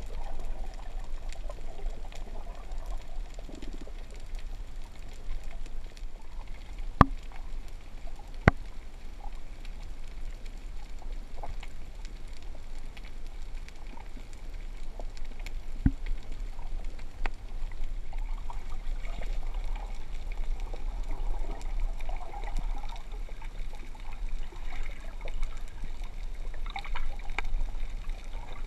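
Underwater ambience picked up by a diving camera: a steady low rumble with a few sharp clicks, and bubbling gurgles that grow stronger in the second half.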